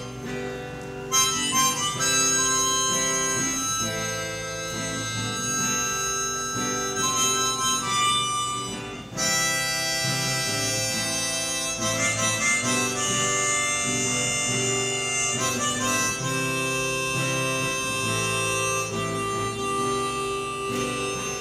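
Harmonica playing held chords over a strummed acoustic guitar, a folk-style instrumental passage, with a brief pause about nine seconds in.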